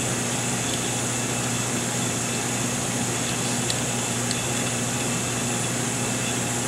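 Steady fan and machinery hum with a constant low drone underneath. A couple of faint light clicks a little past the middle, as keys on the oven controller's keypad are pressed.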